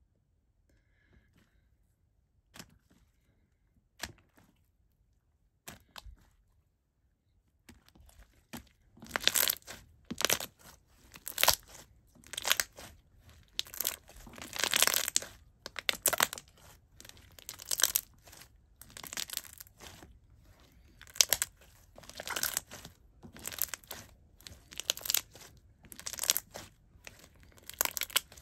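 Hands squeezing a very watery jiggly clear slime between clasped fists, making a run of wet squishing bursts about once a second. It starts after a few faint clicks in the first several seconds.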